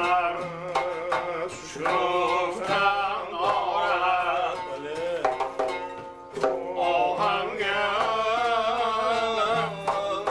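A man singing a wavering, ornamented melody, accompanied by plucked long-necked fretted lutes strummed in a steady rhythm, in a Central Asian folk style.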